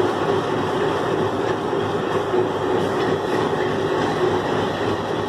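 Diesel locomotive's engine running steadily with a constant droning note as the locomotive closes up to the coaches for coupling.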